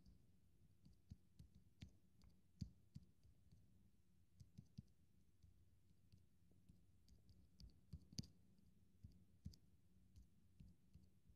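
Faint, irregular clicks of typing on a tablet's on-screen keyboard, in near silence.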